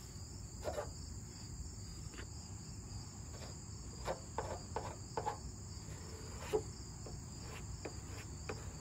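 Short scrapes of a plastic spreader smearing body filler over a car's steel panel, a few single strokes and a quick run of about four about four seconds in, over a steady high chirring of insects.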